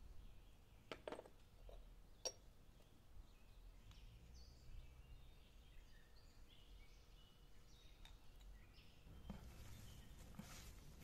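Near silence broken by a small spoon clicking against a glazed ceramic spice pot twice in the first few seconds, with faint bird chirps. Near the end, hands start tossing and squeezing sliced raw onion, a soft crinkling rustle.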